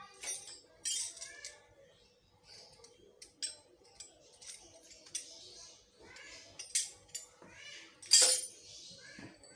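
Sharp clicks and knocks of hand tools, a screwdriver among them, being picked up and handled on a wooden table, the loudest knock about eight seconds in. High-pitched wavering cries come and go in the background.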